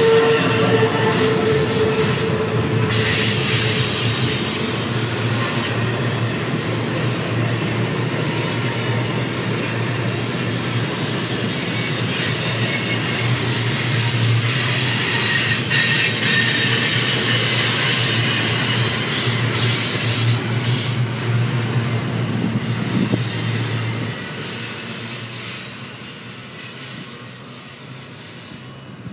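A train's cars rolling past on the rails with high-pitched wheel squeal. The sound is steady, then fades over the last few seconds.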